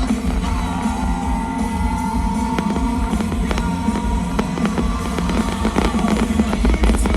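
Loud show soundtrack of rock-style music with guitar and drums, played over loudspeakers, with sharp firework cracks that come more and more often toward the end.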